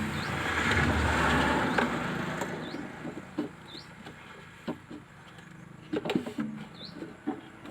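A swell of noise in the first two seconds, then a handful of sharp clicks and knocks from work on the truck's wiring, with a bird's short rising chirp repeating every couple of seconds.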